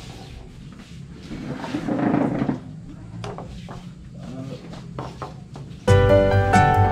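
Faint voices with a few light knocks and clatters from dishes and utensils being handled at a table. About six seconds in, background music starts suddenly and is much louder.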